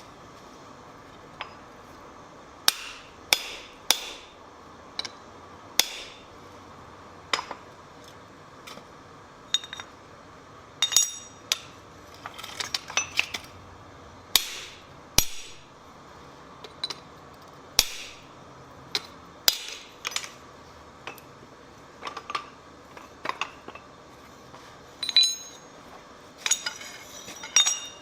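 Blacksmith's hammer striking steel on an anvil: irregular single blows roughly a second apart, each with a metallic ring, broken by a few quick flurries of strikes near the middle and again near the end.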